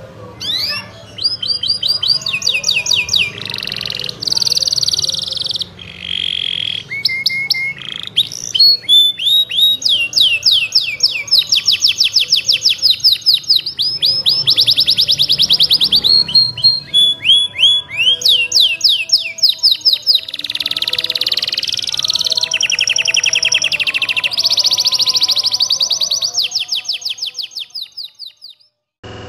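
Domestic canary singing energetically in long rolling trills. Each trill is a fast, evenly repeated run of high notes, some held for several seconds, switching from one trill to the next without pause. The song stops shortly before the end.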